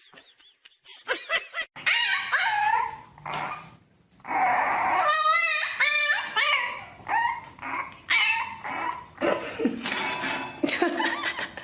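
A dog giving a string of short pitched calls that bend up and down, with one longer wavering call about five seconds in.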